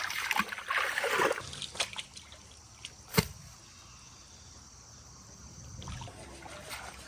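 Water splashing and sloshing in a shallow pond as a big fish is caught by hand, loudest in the first second or so, followed by a single sharp knock about three seconds in and then only faint water sounds.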